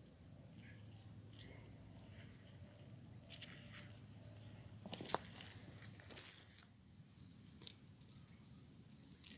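Steady high-pitched chorus of insects, with several shrill tones held without a break. A few faint ticks sound over it, and one sharper click comes about five seconds in.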